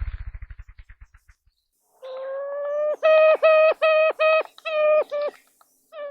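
Ruffed grouse drumming: a rapid run of low wing thumps that quicken and fade out in the first second and a half. This is followed by the loudest part, a series of about seven nasal, whining calls, each dropping in pitch at its end.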